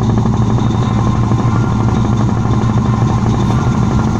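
Tugboat's diesel engine running hard under towing load as it pulls a grounded ship. A steady, loud, low drone with a fast even throb.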